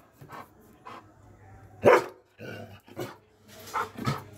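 Doberman barking: a series of short, separate barks, the loudest about two seconds in.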